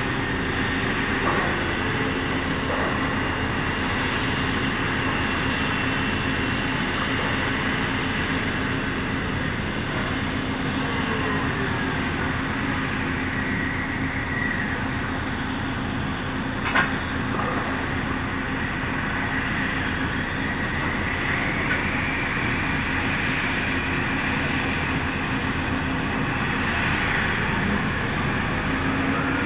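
Gas drilling rig machinery running on the well pad: a steady industrial drone with a hum and high whining tones that slowly rise and fall. A single sharp click comes about seventeen seconds in.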